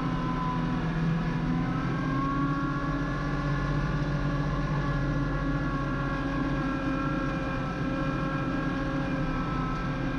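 Kubota LX2610 compact tractor's three-cylinder diesel engine running steadily under load, driving a front-mounted LX2980 snowblower that is throwing snow. The engine's pitch rises a little about a second and a half in, then holds steady.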